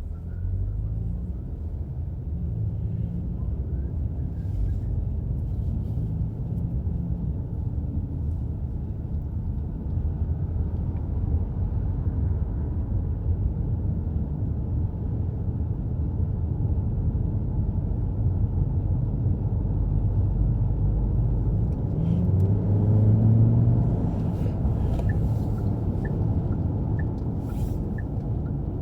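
Car interior while driving: a steady low rumble of engine and road noise, swelling with a rising engine note about three quarters of the way in as the car speeds up. Near the end, a light ticking about once a second.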